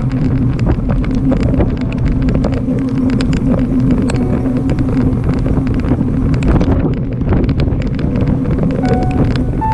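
Steady vehicle-like rumble with wind buffeting the microphone and many small knocks and rattles throughout, typical of riding along a road. Music tones come in right at the end.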